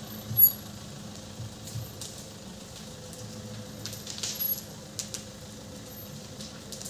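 Fire burning through parked cars, giving off irregular sharp pops, cracks and metallic pings over a steady low background rumble. The loudest pop comes about half a second in, with a cluster of smaller cracks around four seconds in.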